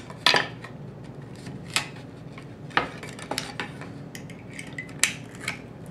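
Steel jaws of Crescent Code Red 11-inch nail pulling pliers gripping and rolling nails out of wood molding: irregular, sharp metallic clicks and clinks as the jaws bite the nails and knock against the trim.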